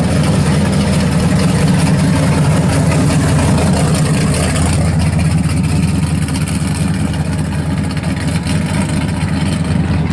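First-generation Chevrolet Camaro SS's V8 running at low speed as the car drives slowly past, a deep steady exhaust note.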